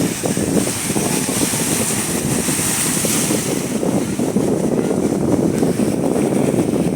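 Ocean surf washing in steadily as the tide rises, with wind buffeting the microphone in a low, continuous rumble. A hiss from the water rises for a couple of seconds near the start.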